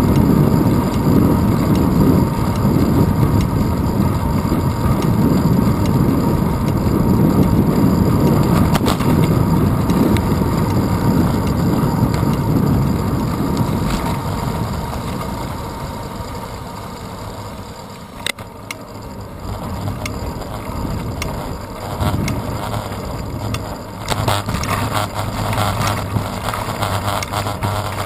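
Wind rushing over a handlebar-mounted GoPro Hero 2 on a moving bicycle, with road rumble and vibration from the tyres. Loud for the first half, then easing off after about fifteen seconds, with a few sharp clicks and rattles later on.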